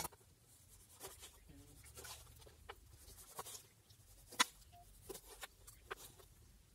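Kitchen knife slicing a tomato and tapping on a wooden cutting board: faint, irregular taps, the sharpest about four and a half seconds in.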